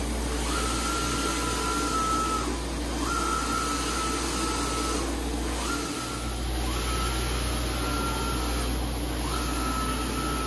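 Mimaki JFX200-2513 UV flatbed printer printing, its print carriage running back and forth across the bed. A whine holds steady through each pass and drops away at each turnaround, about every two and a half seconds, over a steady low hum.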